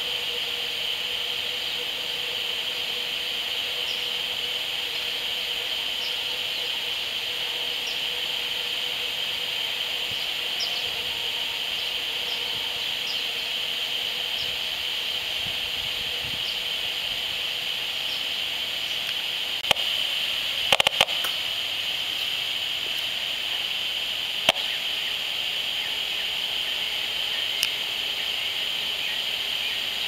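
A steady high-pitched hiss from an HF35C RF analyser's audio output held at a smart meter. A cluster of sharp clicks comes about twenty seconds in and a single click a few seconds later, the analyser's rendering of the meter's pulsed radio transmissions.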